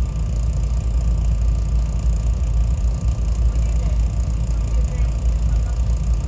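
Steady low rumble of a SEPTA Regional Rail commuter train running along the track, heard from on board.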